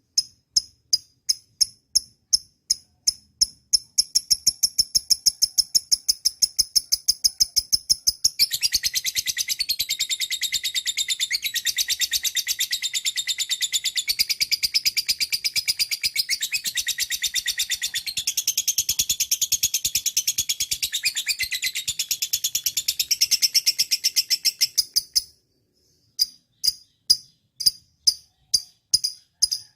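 Lovebird calling: high chirps repeated in an even rhythm that quickens after a few seconds. Then a long unbroken chattering trill of about seventeen seconds that stops abruptly, after which the single rhythmic chirps resume.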